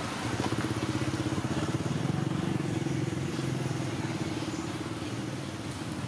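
A motor vehicle engine running with a fast, even low throb, swelling about a third of a second in and easing off slowly toward the end.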